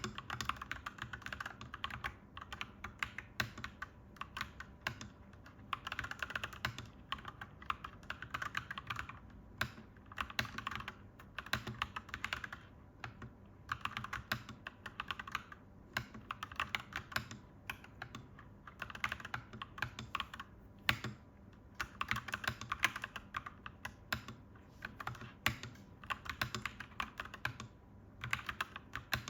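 Clacky mechanical keyboard typing: quick runs of key clicks in bursts of a second or two, broken by short pauses.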